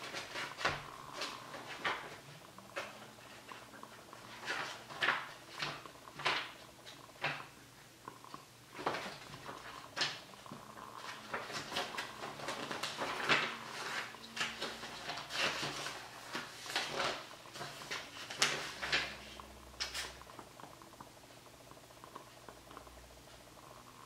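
Pages of a thick textbook being turned and flipped by hand, the paper rustling and flapping in quick, irregular bursts that die down over the last few seconds.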